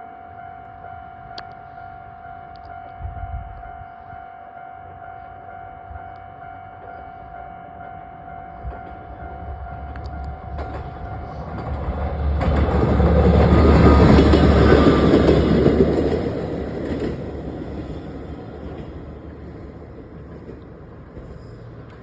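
Japanese level-crossing alarm ringing a steady electronic tone while a Moka Railway train approaches. The train passes over the crossing with a rumble and wheel noise, loudest about 14 s in, then fades away.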